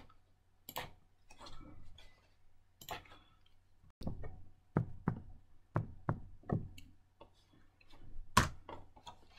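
A stylus tapping against a touchscreen as letters are written on it: about ten short, sharp taps at uneven spacing.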